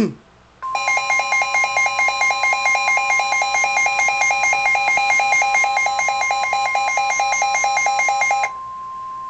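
Midland weather radio sounding its severe thunderstorm warning alert: a fast pulsing electronic alarm, several beeps a second, over a steady single tone. The pulsing stops near the end, leaving the steady tone of the NOAA Weather Radio warning alarm sounding alone.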